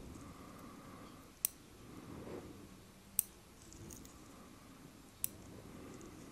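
Three sharp clicks from the tips of metal tweezers snapping shut while picking at the skin and hairs of a forehead hairline, spaced about two seconds apart. Faint soft rustling of fingers on skin lies between the clicks.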